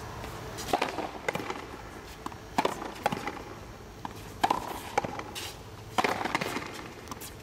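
Frontenis rally: the rubber ball cracking off the rackets and the front wall, sharp strikes mostly in pairs about half a second apart, each ringing briefly in the enclosed court.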